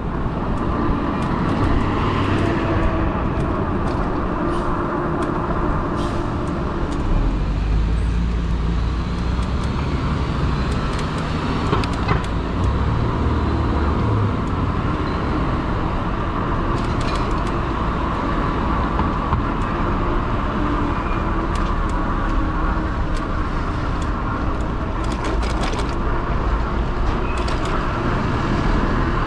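Steady road and traffic noise heard while riding a fat-tire e-bike, a constant rush that takes on a deeper rumble from about seven seconds in.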